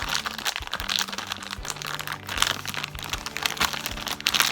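Plastic food packaging crinkling and crackling in rapid irregular clicks as it is handled and worked at to get it open.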